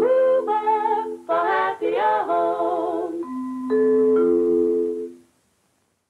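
Closing jingle of a vintage Hoover television advert: held musical chords, a short sung phrase in the middle, then a final held chord that cuts off about five seconds in.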